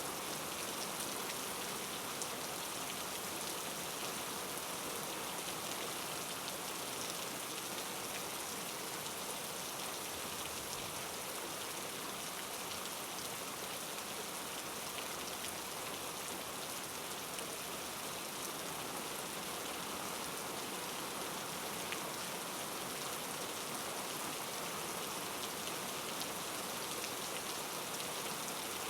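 Steady rain falling, an even hiss that holds constant throughout.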